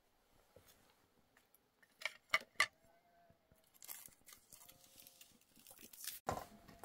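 Hard-boiled eggs being peeled with a small knife over a metal bowl: soft crackle and scraping of shell, with three sharp clicks of knife and shell against the bowl about two seconds in.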